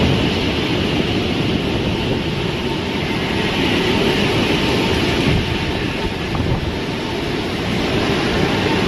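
Hurricane-force wind rushing and buffeting the microphone in a loud, steady roar of noise that swells and eases slightly.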